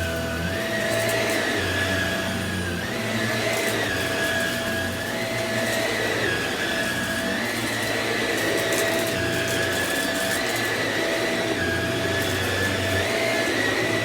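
Samsung CycloneForce upright vacuum cleaner running steadily, its motor whine dipping and recovering in pitch every second or two.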